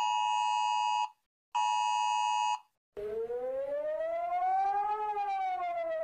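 iPhone emergency alert tone: the steady two-tone attention signal sounds in two blasts of about a second each. After a short silence, about three seconds in, Singapore's civil defence warning siren starts a slow wail, its pitch rising for about two seconds and then falling.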